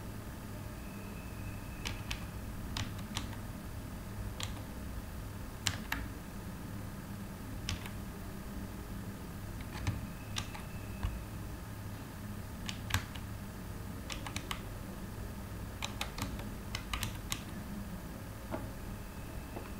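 Computer keyboard being typed on: sparse, irregular keystroke clicks in short runs with pauses between, over a steady low hum.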